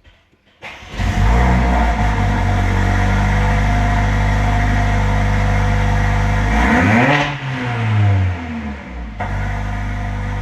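Mercedes-AMG A45's turbocharged 2.0-litre four-cylinder, fitted with a decatted performance downpipe and stage 2 tune, starts up about a second in with a flare of revs and then idles. Later it gives one rev that rises and falls before it settles back to idle.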